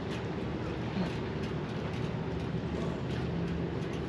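A steady low engine hum holding an even pitch, over a broad outdoor noise.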